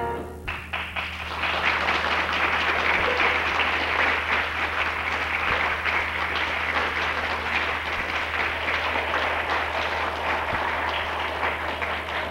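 Audience applauding steadily after the end of a dance performance, starting about half a second in as the last chord of the music dies away. A steady low hum runs underneath.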